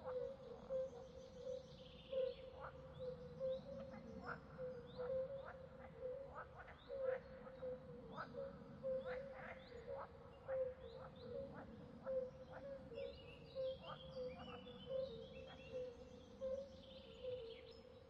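A steady chorus of frogs calling, a continuous pulsing drone at one pitch, with birds chirping over it in short quick notes and a busier flurry of chirps in the last few seconds.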